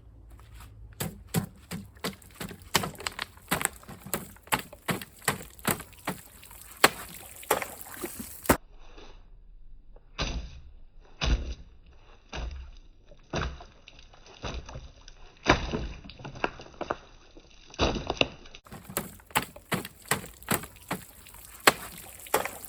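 A Glock 78 field knife stabbed repeatedly into a plastic bottle, giving many sharp, irregular knocks and crackles of plastic, one to three a second.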